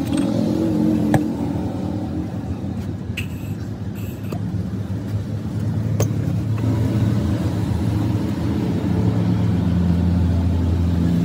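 A steady low engine drone that grows louder in the second half, with a couple of sharp clicks.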